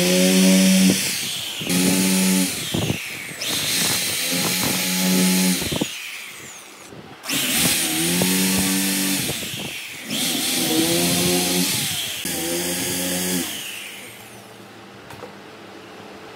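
Handheld power tool run in several bursts of one to two seconds, each a steady motor tone under a strong hiss, as it works the wood; it stops about fourteen seconds in.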